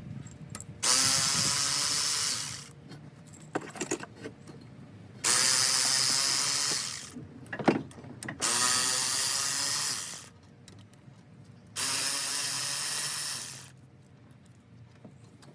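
Handheld power tool run in four bursts of about two seconds each, each starting suddenly and tailing off, with light clinks of metal between bursts; the tool is backing bolts out of a small block Chevy V8 during teardown.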